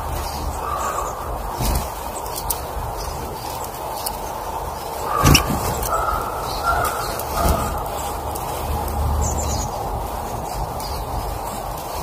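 Birds calling outdoors: a few short calls scattered through, over a steady low rumble, with one sharp knock about five seconds in.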